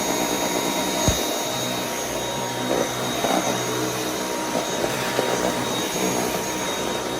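Dyson V8 Animal cordless stick vacuum running steadily as it vacuums, a steady rushing noise with a high whine over it. A single sharp thump comes about a second in.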